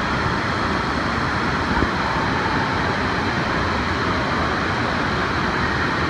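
Steady rushing din of an indoor water park pool: water splashing and running, with a brief low thump about two seconds in.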